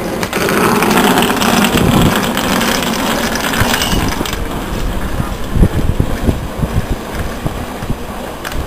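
London Overground Class 378 electric train standing at the platform with its doors shut: a loud rushing hiss for about the first four seconds, then a lower steady running noise with wind knocking on the microphone.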